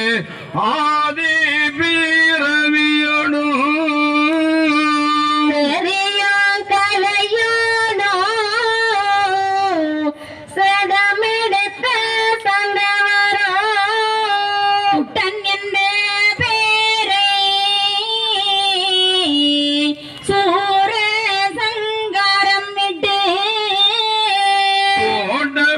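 One voice chanting an Ayyavazhi devotional verse in a slow, drawn-out melody. It holds long, wavering notes and steps between pitches, pausing for breath about ten and twenty seconds in.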